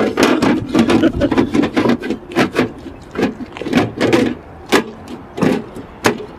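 Side panel of a desktop computer tower being fitted back onto the case and pressed shut by hand: a quick, irregular run of clicks and knocks of panel against chassis.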